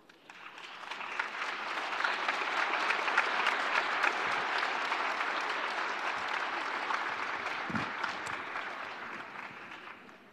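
Audience applauding: many hands clapping at once, swelling over the first two seconds, holding, then dying away near the end.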